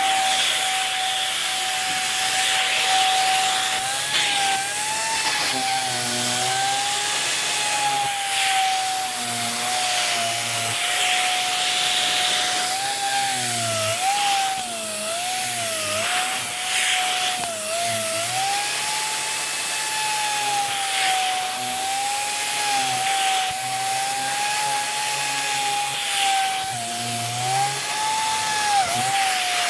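A Dyson Big Ball Animal cylinder vacuum is running with its tangle-free turbo tool, brushing pet hair off a fabric throw. It makes a steady high motor whine that wavers in pitch, over the rush of air and the turbo brush working on the fabric.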